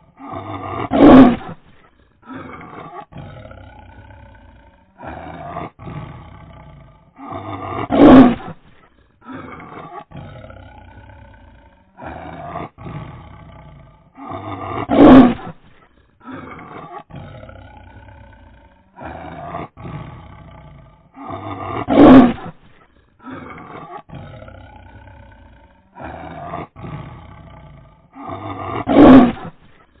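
Tiger roaring. The same sequence repeats about every seven seconds: a few quieter calls build to one loud roar, five loud roars in all.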